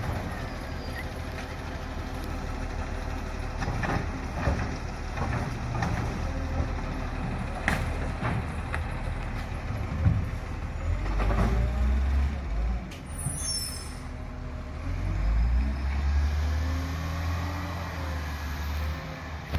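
Garbage truck's diesel engine running, with several sharp knocks and clanks, a short air-brake hiss about two-thirds of the way through, and the engine surging louder as the truck pulls away.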